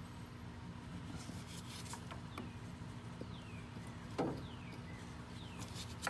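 Faint clicks and one sharper knock of metal parts being handled while a power steering pump is fitted back into place, over a steady low hum. A bird chirps a few short falling notes in the background.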